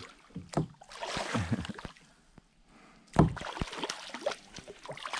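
Hooked fish thrashing and splashing at the surface right beside a kayak, with scattered knocks and a sudden loud thump about three seconds in.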